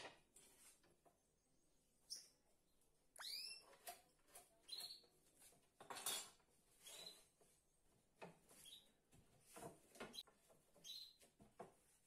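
Faint, sparse handling sounds of wooden boards on a workbench: soft knocks and scrapes, with short high chirps, several sweeping down in pitch, about once a second.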